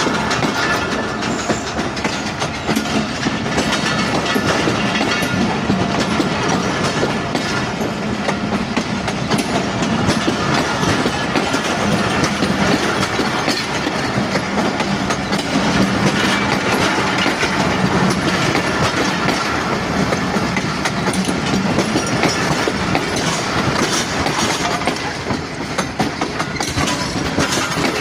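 Train rolling along the track, a steady clatter of its wheels on the rails.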